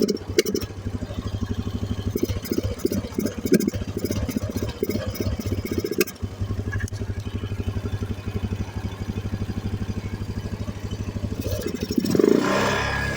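ATV engine running at idle with rapid, slightly uneven pulses, then revved briefly near the end. The engine is misfiring back through the carburettor.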